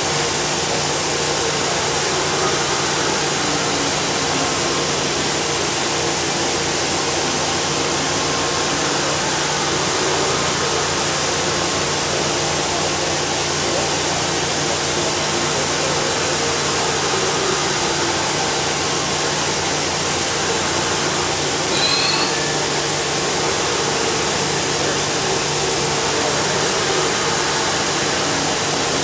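Hitachi Seiki HG630 horizontal machining center running, with a steady whir and hum from its pumps and fans. Faint rising and falling motor whines come as the spindle head traverses between positions. Once, about three quarters of the way through, there is a short high rising chirp.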